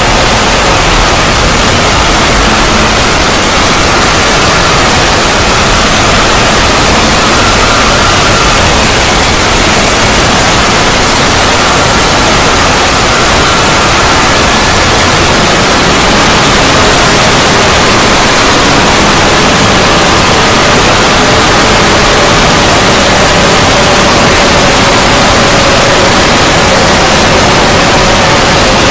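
Loud, steady static-like noise from an edited 'void' logo sound effect, with faint tones running through it and one drifting slowly lower in the second half.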